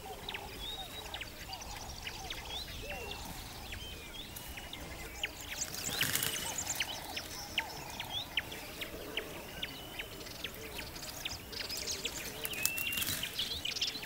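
A chorus of wild birds: many short high chirps and whistles, with lower calls underneath and scattered sharp clicks.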